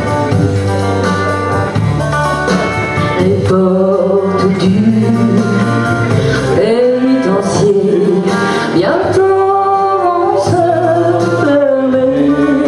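A solo voice singing into a handheld microphone over instrumental accompaniment, holding notes and sliding between them.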